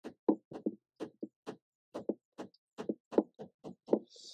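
Hammer knocking on wood, tapping a wooden stake down into the canoe's building bed: a run of quick, irregular knocks, about four a second.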